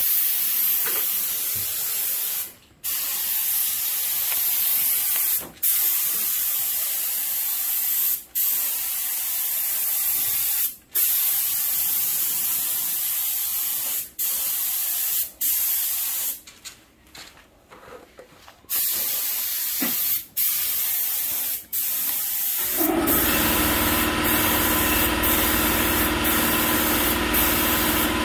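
Compressed-air paint spray gun hissing as it lays down clear coat in a series of passes, each cut by a brief trigger release every few seconds, with one longer pause partway through. About three-quarters of the way in, a motor starts up with a steady hum under the spraying: the air compressor kicking on.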